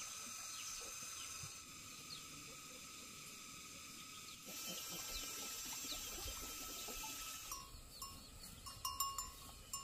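Steady high drone of insects in the outdoor background. Near the end come several short clanks from a bell on the grazing cattle.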